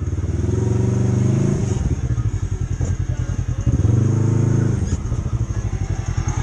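Polaris RZR side-by-side's engine running hard along a dirt trail. The engine note climbs twice, once from about half a second in and again near four seconds, easing off in between.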